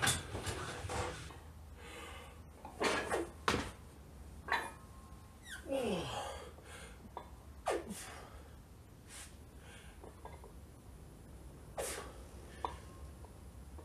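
A weightlifter's sharp, forceful breaths during a set of presses: short blasts of air every second or so, a couple trailing off into a brief falling grunt.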